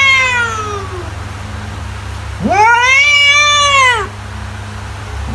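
Domestic cat meowing twice: a short call that falls away right at the start, then a longer drawn-out meow about two and a half seconds in that rises and then falls. A steady low hum runs underneath.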